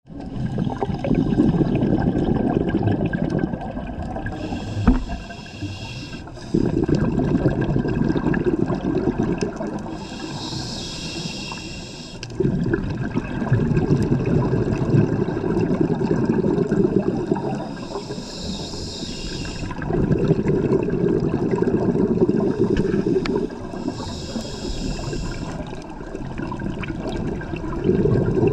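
Scuba diver breathing through a regulator underwater: four hissing inhales, each followed by several seconds of rumbling, gurgling exhaust bubbles, in a steady cycle of about one breath every six to eight seconds.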